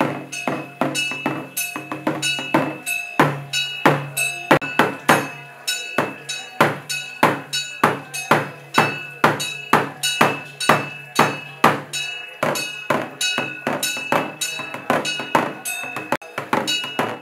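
Rhythmic ritual percussion music, with sharp ringing strikes about three a second over a low steady drone.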